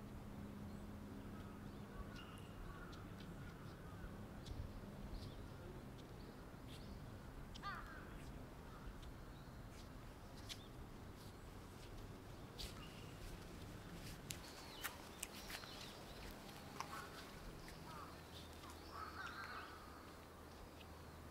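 Crows cawing now and then over quiet open-air ambience, with a low steady hum underneath. A few sharp clicks and short high chirps come through in the middle.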